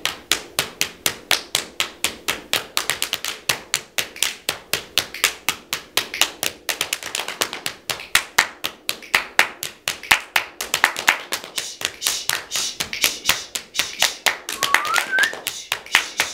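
Hands clapping and slapping in a steady percussive rhythm, about three or four strokes a second, as body percussion. A short rising tone sounds near the end.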